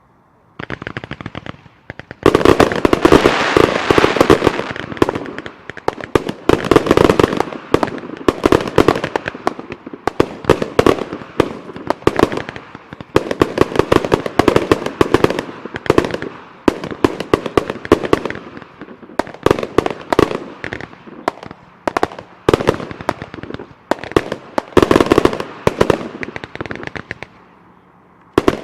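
1.3G display fireworks firing: a dense, continuous volley of bangs and crackling that builds up about two seconds in and comes in repeated surges for some twenty-five seconds, dying away near the end.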